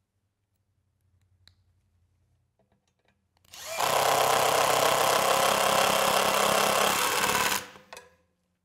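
Cordless impact driver with a long magnetic square-drive bit driving a screw into a maple burl tabletop, running steadily with a fast rattle for about four seconds from midway in, then stopping. A few faint handling clicks come before it.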